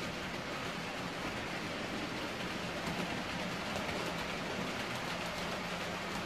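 H0-scale model train running along the layout's track: a steady rushing of small wheels rolling on the rails, with a faint low motor hum at times.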